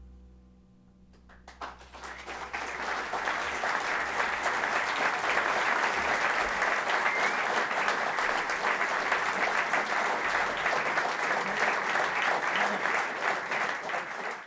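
Concert audience applauding. The band's last low note fades away, then clapping starts about a second and a half in and quickly swells into steady, dense applause.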